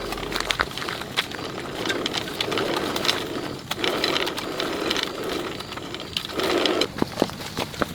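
Irregular mechanical clicks mixed with stretches of scraping or rubbing noise, the rubbing loudest a little past six seconds in.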